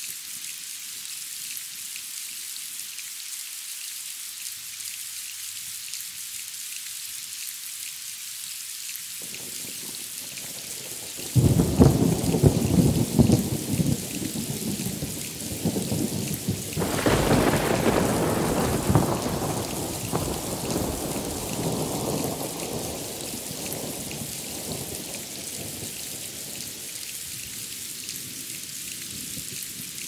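Steady heavy rain with a thunderstorm. About eleven seconds in a loud thunderclap breaks out, a second crack follows some five seconds later, and the rumble rolls on and dies away over the next several seconds.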